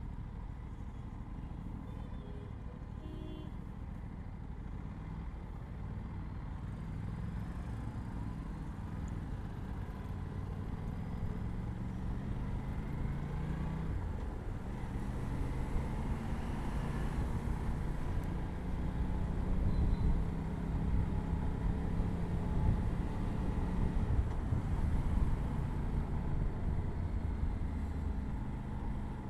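Aprilia RS 457's 457 cc parallel-twin engine through its stock exhaust, riding in city traffic. The revs rise and fall repeatedly as it accelerates, shifts and rolls off.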